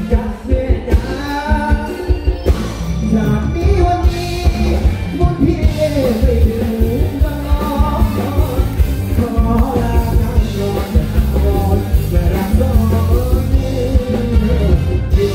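Male singer singing live into a microphone with a band, amplified through a stage PA, over a steady, heavy beat.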